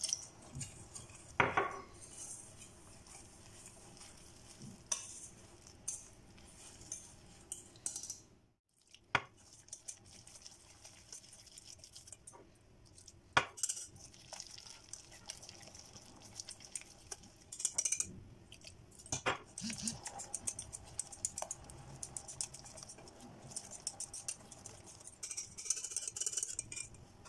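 Wire whisk stirring and scraping in a stainless steel bowl, beating flour and water into a soft batter, with irregular sharp metal clicks and knocks against the bowl's side.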